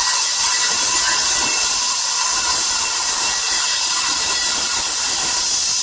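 Makita circular saw with a cutting disc running steadily as it cuts through the cast aluminium blade of a 2.5 m fishing-boat propeller, trimming the blade tip. It gives a steady high whine over a loud hiss.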